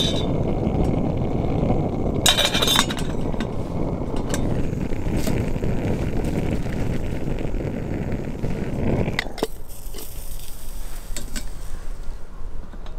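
Stainless steel camping kettle clinking as its lid and wire handle are handled, with a cluster of metallic clinks about two and a half seconds in and a few lighter clicks later. Under it a steady low rumble runs until it stops suddenly about nine seconds in.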